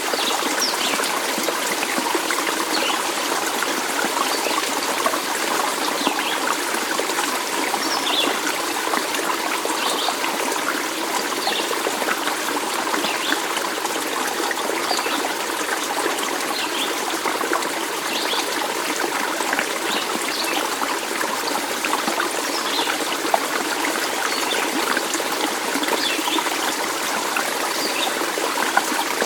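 Small stream trickling steadily over stones, with frequent brief high plinks of water scattered through it.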